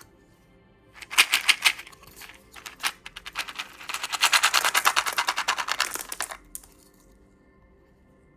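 Candy packaging handled close to the microphone: a few loud crackles about a second in, then a fast, even run of clicks, about ten a second, for some three seconds before it stops.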